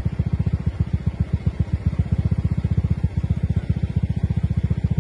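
Helicopter rotor chop overhead: a steady, rapid, low-pitched thudding of about a dozen beats a second.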